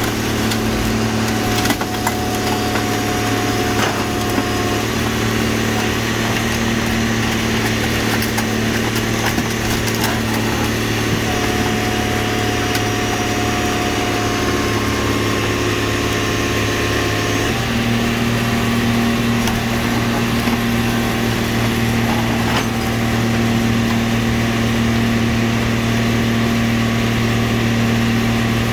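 Car crusher's engine and hydraulic press running steadily under load as the lid presses down on a stack of cars. Scattered cracks and creaks of crushing metal and glass come mostly in the first few seconds. About 17 seconds in, the engine note shifts and settles at a new steady pitch.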